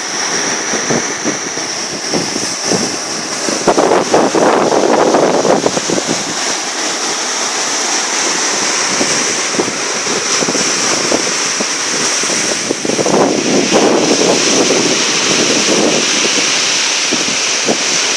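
Sea waves washing and splashing, with wind buffeting the microphone in gusts and a steady high hiss over it.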